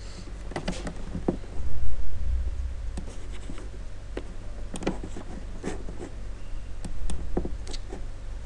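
Computer mouse clicking irregularly, with light desk-handling knocks over a steady low electrical hum; a louder low bump comes about two seconds in.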